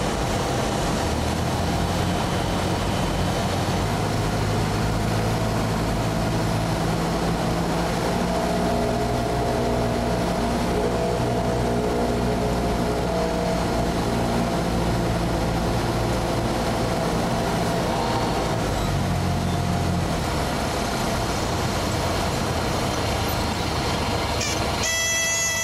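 Cabin noise of a single-engine Cessna: a steady engine and propeller drone with rushing air through the final approach and landing. The engine note drops away about twenty seconds in. A brief high-pitched tone sounds near the end.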